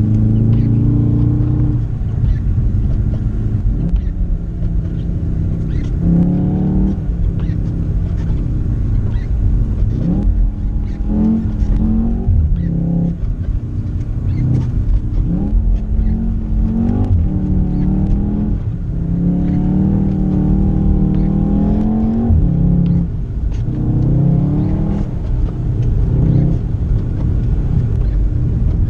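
Volkswagen Golf R's turbocharged four-cylinder engine pulling hard, its note climbing in pitch and dropping back at each gear change, again and again, over a constant rumble of tyres and road noise heard from inside the cabin.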